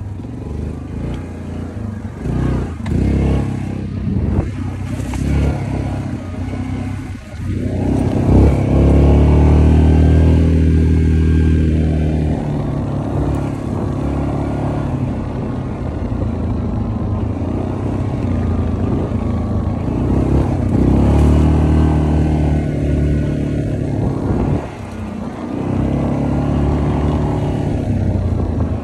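Quad (ATV) engine running under the rider on a rough dirt track, its revs rising and easing off with the throttle, holding steady for a few seconds at a time, with a dip about three-quarters of the way through.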